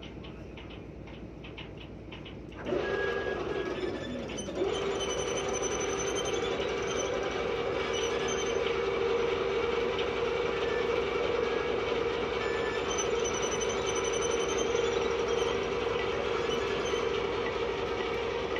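Lifeboat davit winch running with a steady mechanical whine as it works the boat on its falls. The whine sets in about three seconds in, dips briefly in pitch a second later, then holds steady.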